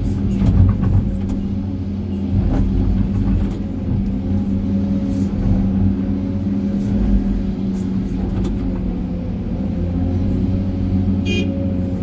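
Excavator's diesel engine running steadily under hydraulic load, heard from inside the cab, with clatter of rocks and soil dropping into a steel dump-truck body near the start and again about two and a half seconds in.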